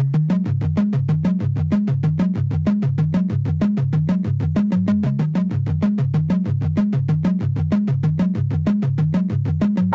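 Electronic music: a pulsing synthesizer bass line stepping between a few notes under a fast, steady beat.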